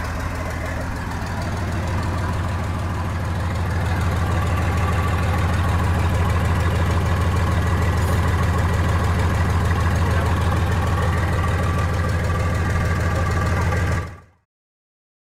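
Newly overhauled Mercedes-Benz engine running steadily. It grows a little louder over the first few seconds, and the sound cuts off suddenly near the end.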